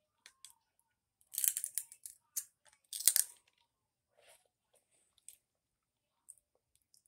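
A person eating close to the microphone: two loud bouts of crackly crunching and chewing, about one and a half and three seconds in, with small clicks and mouth smacks scattered between.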